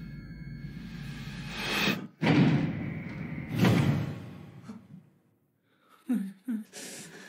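Trailer sound-design swell that rises and cuts off sharply, followed by two heavy booming impacts about a second and a half apart, each dying away into near silence. Two short low sounds come near the end.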